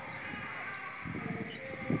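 Outdoor ambience: a crackly rumble of wind on the microphone, stronger in the second half, over faint distant animal calls.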